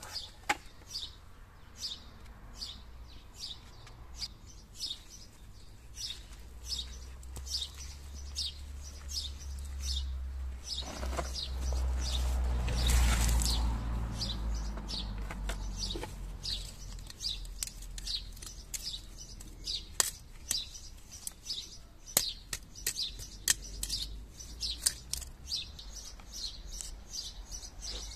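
Small birds chirping over and over, sometimes several chirps a second, while a garden tool chops into soil with a few sharp knocks. A low rumble builds and fades around the middle.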